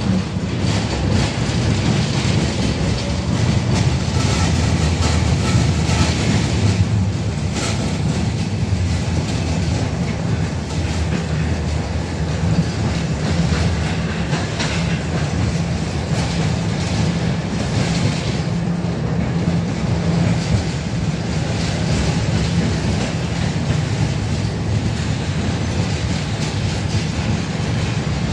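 71-605A tram running along the track, heard from inside the car: a steady low rumble of wheels and running gear, with rail clicks and rattles, the sharpest about seven to eight seconds in.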